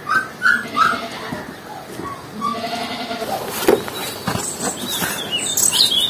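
Goat bleating: three short calls in the first second, then more calls. Birds chirp near the end.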